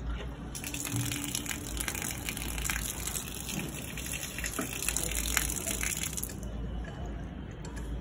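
Water gushing through the washing-machine supply line and tap as the valve on the overhead pipe is worked, a hiss that starts about half a second in and cuts off about six seconds in.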